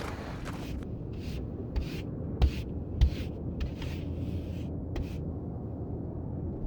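A run of short crunching scrapes in snow, about two a second, over a low steady rumble like wind. The scrapes stop about five seconds in.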